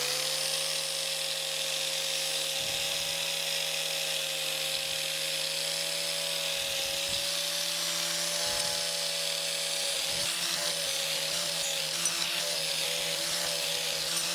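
Angle grinder with a cup wire wheel running steadily at speed, a constant whine over a hiss, while it brushes dross off plasma-cut steel brackets. The pitch wavers slightly in the last few seconds.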